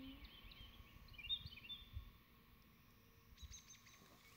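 Faint bird chirps, a few short high notes in the first couple of seconds, over a quiet outdoor background.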